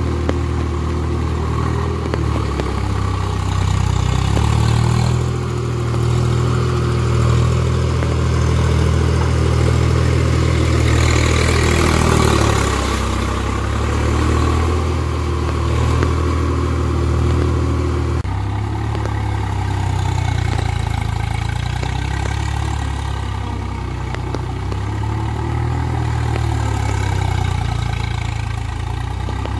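Swaraj 735 FE tractor's three-cylinder diesel engine running steadily under load as its steel cage wheels churn a waterlogged paddy field into mud. Its note changes abruptly about two-thirds of the way through.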